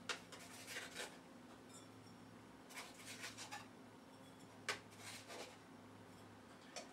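Faint scrapes and light clicks of a spoon scooping brown sugar out of a plastic container and tipping it into a glass mixing bowl, in a few short clusters with pauses between.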